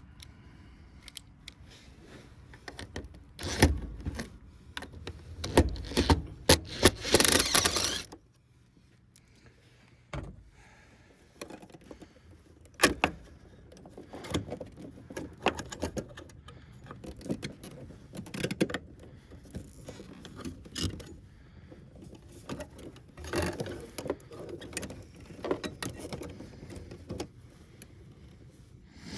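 Irregular clicks, knocks and metallic rattling from tools and parts being handled, densest in a stretch of clatter about four to eight seconds in, then scattered clicks.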